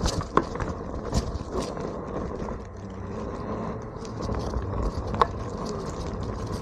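Onewheel electric board riding over a rough surface: steady rolling noise with a faint hum, broken by a few sharp clicks as small rocks are kicked up and strike the board or rider, the loudest about five seconds in.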